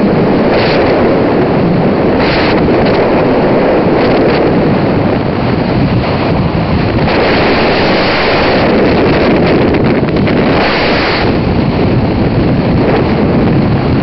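Loud, steady wind rushing over the microphone of a camera held out of a moving car's window at highway speed. Several gusts of sharper hiss come and go, a few in the first half and a stronger pair around the middle.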